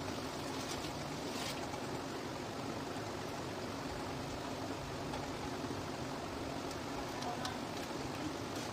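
Steady background hiss with a few faint, light clicks and taps from hands handling the plastic Bluetooth speaker case and its small parts.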